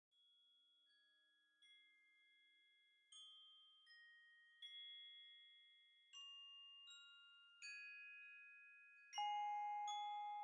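Background music: a slow melody of bell-like chiming notes, glockenspiel-like, each note ringing on and overlapping the next, fading in from very faint and growing louder.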